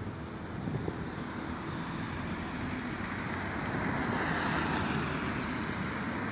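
Road traffic on a wide multi-lane junction: cars driving past with tyre and engine noise, swelling as a car passes close about four seconds in.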